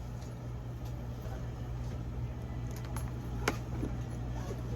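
Steady low hum with a few light clicks and one sharp click about three and a half seconds in.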